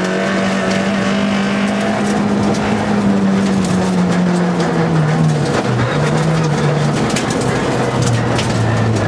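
Škoda Felicia Kit Car rally car heard from inside the cabin at speed on gravel: the engine holds high revs, then its pitch falls about halfway through and settles lower near the end. Gravel and stones clatter against the underside throughout.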